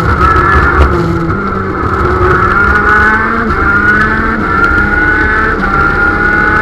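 KZ shifter kart's 125 cc two-stroke engine at full throttle, heard from on board. The note climbs in pitch and drops back about four times as the kart accelerates out of a corner, consistent with upshifts through the gearbox. A low rumble of wind and vibration runs underneath.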